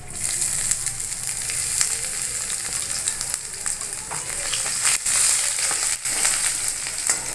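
Ginger and garlic paste sizzling in hot mustard oil in a steel kadhai, the sizzle jumping up as the paste hits the oil at the start. A steel spoon stirs it, scraping and clicking against the pan.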